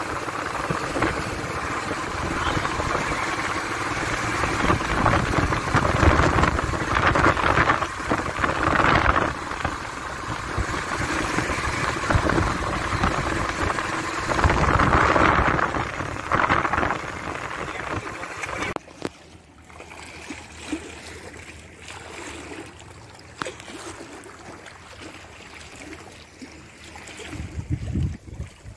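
Wind buffeting the microphone over lake water lapping against a stone embankment. About two-thirds of the way through, the louder wash cuts off abruptly and softer water lapping is left.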